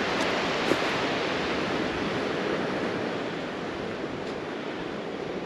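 Ocean surf breaking on a rocky shore: a steady rushing noise that eases slightly toward the end.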